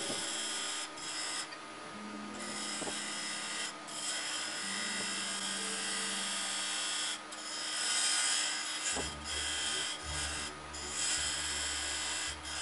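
Turning tool cutting hardened epoxy putty on a bowl blank spinning on a Powermatic wood lathe: a scraping hiss in a series of passes, broken by short pauses when the tool lifts off. A low rumble joins in for the last few seconds.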